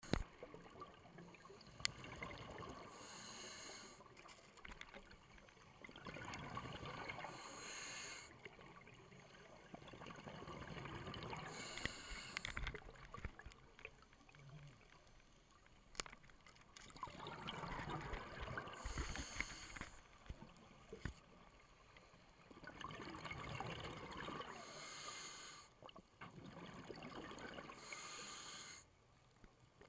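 A scuba diver breathing underwater through a regulator: about six breath cycles, each a short hissing inhalation, with exhaled bubbles gurgling between the breaths.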